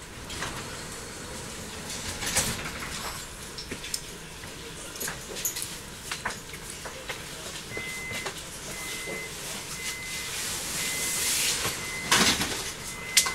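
DB Class 422 S-Bahn train standing at a platform: scattered clicks and knocks, then the door-closing warning beeping about once a second from about 8 s in. A hiss builds under it, and the sliding doors shut with loud knocks and thuds near the end.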